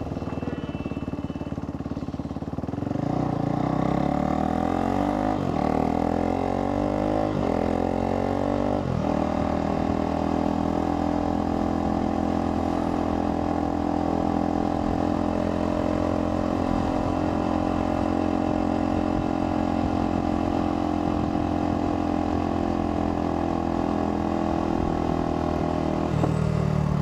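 Motorcycle engine accelerating through the gears: its pitch climbs and drops back about three times, then holds a steady note while cruising, falling as the throttle eases near the end.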